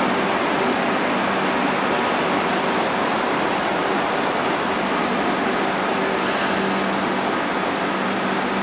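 Hong Kong Light Rail fourth-generation train standing at the platform, its on-board equipment running with a steady rushing hum and a low steady tone. A short hiss about six seconds in.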